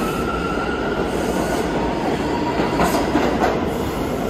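New York City subway A train pulling out of the station: a steady rumble of steel wheels on the rails with a faint wheel squeal. A few sharp clacks come about three seconds in.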